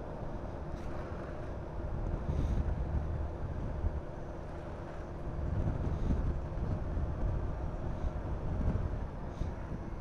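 Honda Forza 350 scooter's single-cylinder engine running at road speed, with wind buffeting the microphone. The buffeting swells about two seconds in and again around six seconds in.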